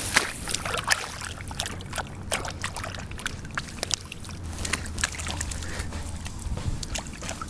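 Dry grass crackling and rustling with many small irregular snaps as hands are worked through it.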